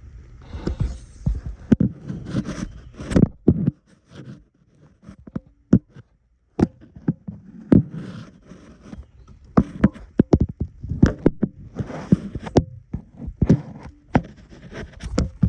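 Irregular metal clicks and knocks of a wrench and socket working on a starter mounting bolt, with rustling between them and a short quiet pause near the middle.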